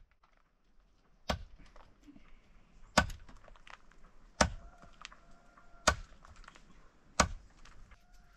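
A blade chopping into wood five times, one sharp chop about every one and a half seconds, as herb ropes are cut on a block.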